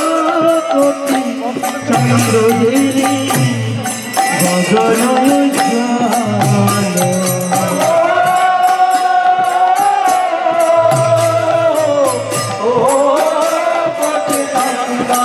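Kirtan: devotional chanting of a mantra sung to a melody over a steady beat of hand cymbals.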